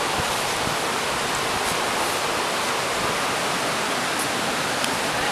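Steady rushing of a shallow mountain stream's flowing water.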